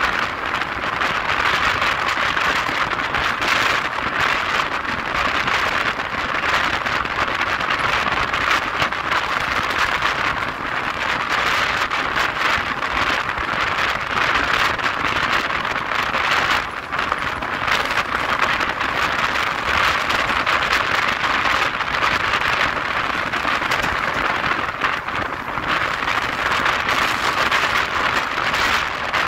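Running noise of a passenger express train at speed, heard from an open coach door: a steady rush of wind and wheel-on-rail noise with no break.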